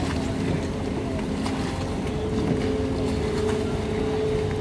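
Boat engine running with a steady hum that grows stronger about two seconds in.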